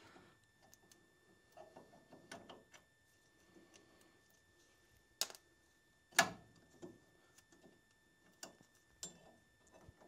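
Scattered light clicks and knocks of a hand tool and metal parts being worked on a Porsche 911 rear hub's e-brake hardware. Two sharper clacks come about five and six seconds in.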